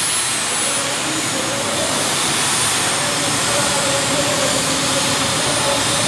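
Unlimited-class pulling tractor's engines running hard, a loud, dense, steady noise with a high-pitched whine over it, heard in an enclosed arena.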